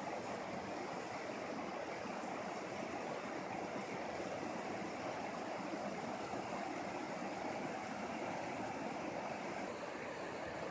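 A fast, shallow mountain river rushing over rocks and riffles: a steady, even rush of water, a little less hissy near the end.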